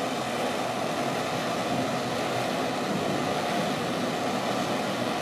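Steady mechanical background noise, an even hum and rush that holds level with no distinct knocks or clicks.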